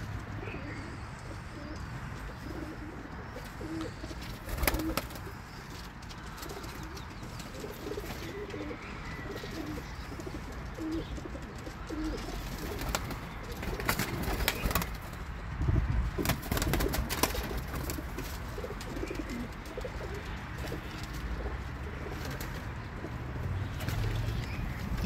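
Doves cooing in low, short repeated coos, with a few sharp knocks and rustles about halfway through.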